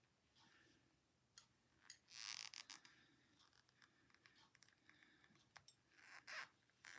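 Faint clicks of knitting needles and scratchy rustling of yarn as stitches are picked up, a few sharp ticks and short rustles spread through the quiet.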